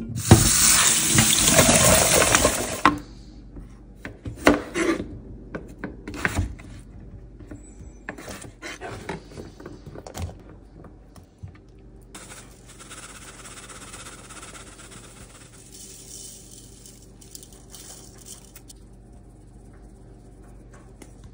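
Water from a kitchen tap runs loudly over potatoes in a stainless steel pot in the sink for about three seconds. Then come scattered knocks and clatters as potato wedges are handled and dropped into a bowl, and later a softer hiss for several seconds.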